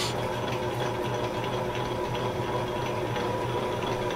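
Electric mixer motor running steadily while whipping egg whites for meringue: an even mechanical hum with no change in pitch.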